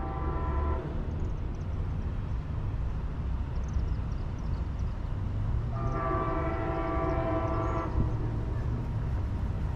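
Distant multi-chime air horn of an approaching Amtrak ALC-42 Charger locomotive, sounding two long blasts: the first ends just under a second in, the second starts about six seconds in and lasts about two seconds. A low steady rumble runs underneath.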